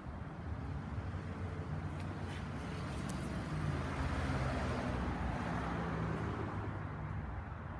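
A motor vehicle passes on the street: its engine hum and tyre noise build, are loudest about halfway through, then fade.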